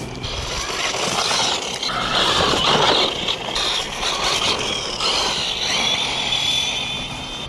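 HPI Jumpshot ST Flux RC truck driving on rough asphalt on a 2S battery, its brushless motor whining under tyre noise. The whine rises and falls and is loudest as the truck passes close, about two to three seconds in.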